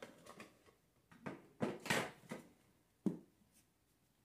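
Fabric being pulled and smoothed over a chair-seat board, a few short rustles and knocks of handling, with a sharp click a little after three seconds as a hand staple gun is set against the seat.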